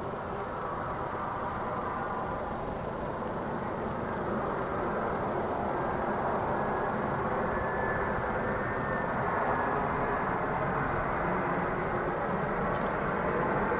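Boeing 767-300ER freighter on final approach, its twin jet engines a steady rumble that grows gradually louder as it comes closer, with a faint high whine about halfway through.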